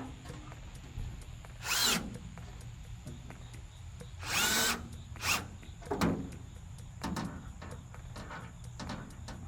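Power drill driving fasteners in about six short bursts, the longest about half a second, its motor pitch rising as each burst starts.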